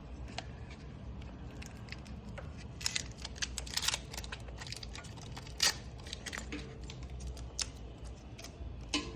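Small plastic clicks and rattles of electrical connectors and wiring being handled and pushed together, a cluster of them a third of the way in and a sharper single click a little past halfway.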